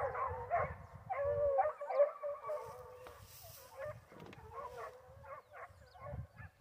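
A pack of foxhounds baying in chorus, many drawn-out cries overlapping: the hounds giving tongue as they trail a wild boar. The chorus is strongest in the first couple of seconds, then goes on more faintly.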